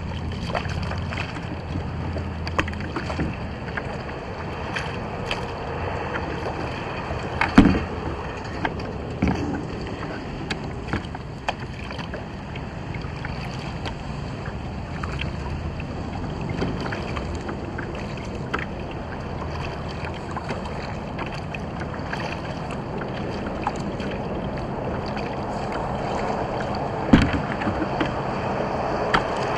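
Water splashing and lapping against a kayak hull as a large red drum is held in the water alongside, with scattered knocks on the hull; the two loudest come about seven seconds in and near the end.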